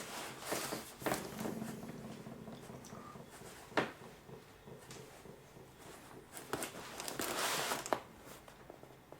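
A package being handled: rustling, with a few sharp clicks and knocks and a longer scraping rustle near the end.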